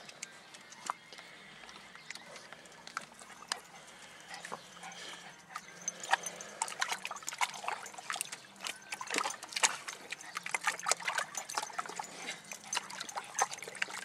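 Mini dachshund splashing and biting at the water in a shallow plastic kiddie pool, with a garden hose trickling in. The splashing is light and scattered at first, then turns busy and louder about six seconds in as she thrashes and turns in the water.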